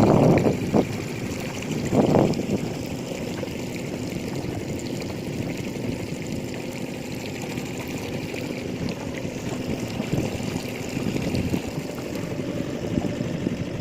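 Campfire burning: a steady rush with scattered small crackles. There are two brief louder low rushes near the start.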